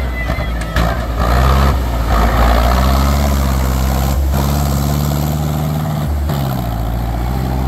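Zetor 7745 tractor's four-cylinder diesel engine running under load as the tractor churns through deep mud, holding a steady pitch.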